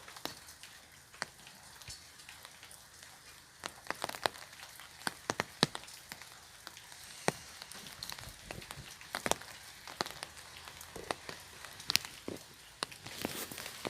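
Rain falling on an umbrella: scattered sharp drop taps over a soft steady hiss. The patter grows denser and louder near the end.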